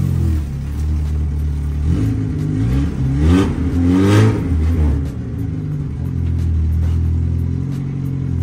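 Car engine running, revved up and back down twice about three to four seconds in, otherwise holding a steady pitch.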